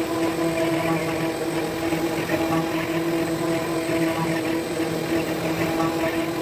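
CNC router spindle running at a steady pitch while a fine carving bit cuts a 3D relief into a wooden board, with a rough hiss from the cut.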